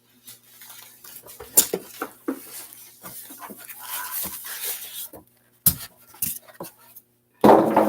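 Plastic packaging rustling with irregular clicks and knocks of the air fryer's plastic and metal parts as it is opened and unpacked.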